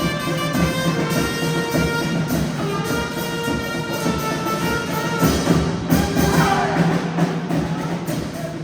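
Brass band music: horns holding melody notes over a steady drum beat.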